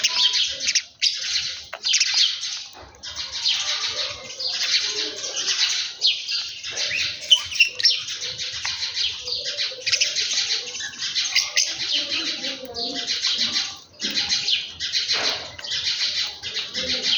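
A flock of small birds chirping densely and almost without pause, many calls overlapping, with a few scattered lower calls beneath.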